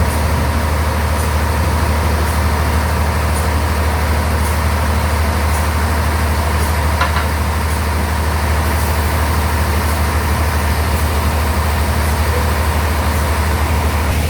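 Sawmill bandsaw running steadily with a deep hum; a thin steady whine stops near the end.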